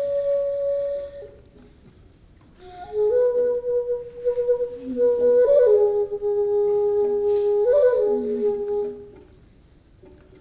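Solo flute playing slow, long held notes that slide between pitches. A held note stops about a second in; after a short pause a longer phrase of sustained notes follows, dying away shortly before the end.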